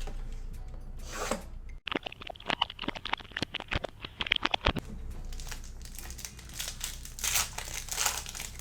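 Panini Select basketball card packaging being torn open: a quick run of tearing for about three seconds, then the pack wrapper crinkling.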